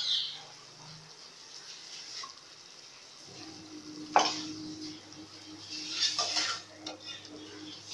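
A metal slotted spoon scraping and clinking against aluminium cooking pots as boiled beef trotters are lifted out of their stock, with splashes of liquid; one sharp clank about four seconds in and a splashy clatter about six seconds in.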